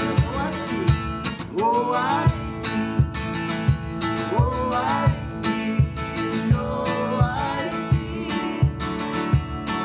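Music: a guitar-led, country-style worship song with a steady beat and sliding melody notes.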